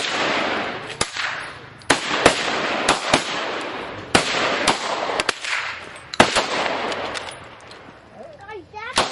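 A rapid, irregular string of about ten gunshots, each trailing off in a long echo, then a quieter stretch about two seconds before the end.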